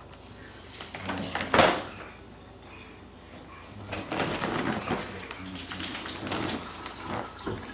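Foil balloon being slapped and crinkled by small hands: one sharp slap about a second and a half in, then a stretch of crinkly rustling and light taps.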